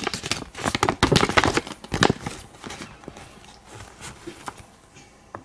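Crinkling of a plastic blind bag and rustling of a folded paper checklist as it is pulled out and opened up. The sounds are busiest in the first two seconds or so, then thin to a few light ticks.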